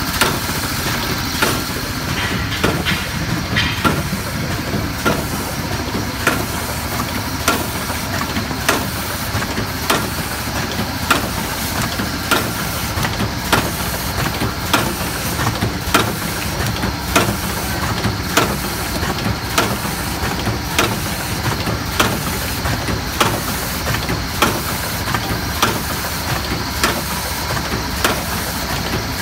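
Rotary coffee capsule filling and sealing machine running: a steady mechanical noise with a sharp clack about every 1.2 seconds as it cycles through filling and sealing the capsules.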